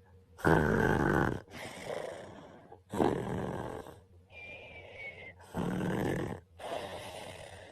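A man snoring in his sleep: three loud snores about two and a half seconds apart, each followed by a softer breath.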